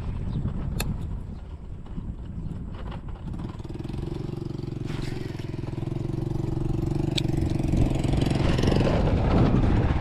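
A motor engine running steadily, growing louder near the end, over a low rumble, with a couple of sharp clicks.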